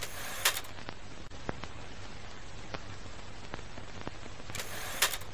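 Old-film effect: steady hiss with a low hum and scattered crackling clicks, broken by two short loud bursts of noise, one about half a second in and one near the end.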